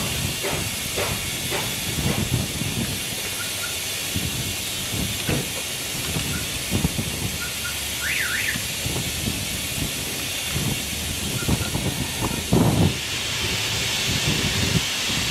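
Steady hiss of an oil suction extractor drawing old oil out of the valley of a 7.3 Powerstroke diesel engine, with scattered knocks from handling the hose and tools and a short squeak about eight seconds in. The hiss grows louder near the end.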